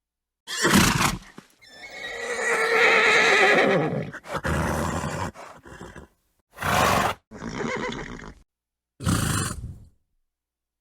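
Horse sounds in separate short takes: a brief snort, then a whinny lasting about two seconds that wavers and drops in pitch at its end, followed by several short snorts.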